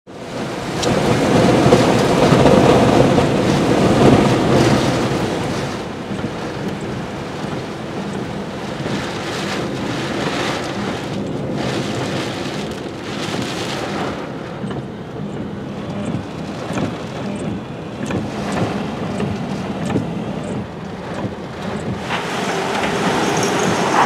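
Tropical-storm wind gusting hard with rain, buffeting the microphone. The strongest gust comes in the first five seconds, then the gusts keep coming and going.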